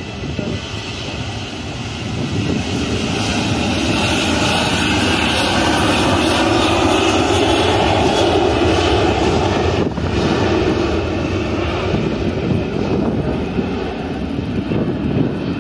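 Airliner engines roaring as an aircraft passes. The roar builds over the first few seconds, is loudest through the middle, then slowly eases.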